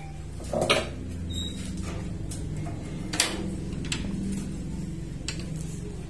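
A few sharp clinks and knocks, the loudest about a second in and another about three seconds in, from the cup of earthworms and the breeding cage being handled. A steady low hum runs underneath.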